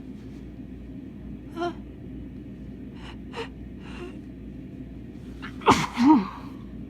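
A person with a bad cold gasps a few times in short catches of breath, then sneezes loudly near the end.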